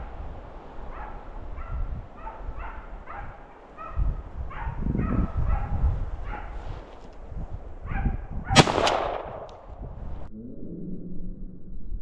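Hunting dog barking and yelping in a quick run of short, high calls, two or three a second. Near the end a single loud gunshot rings out.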